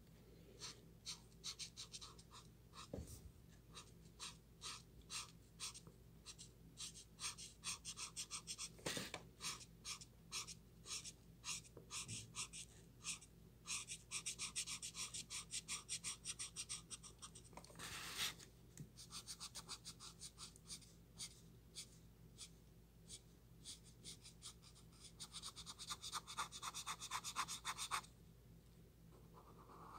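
Faint strokes of a green alcohol marker's tip rubbing back and forth on paper, several a second, as an area is coloured in. The strokes run closer together in a few stretches of steadier rubbing.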